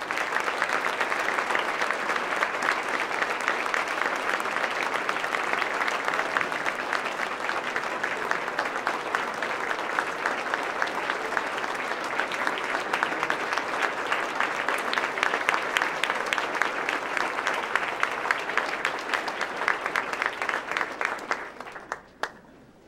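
A large audience applauding: dense, steady clapping that fades away about a second before the end.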